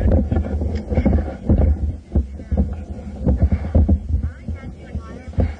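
Irregular thumps, knocks and a low rumble of handling noise from a camera mounted on an airsoft M4 rifle as the gun is carried and jostled.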